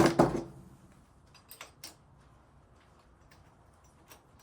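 A sharp metallic clank with a brief ringing tail as tools or handlebar parts are handled during the install, followed by a few light clicks and taps.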